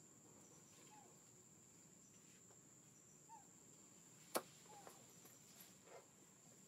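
Near silence of forest background: a faint steady high-pitched whine, a few faint short chirps, and one sharp click about four and a half seconds in.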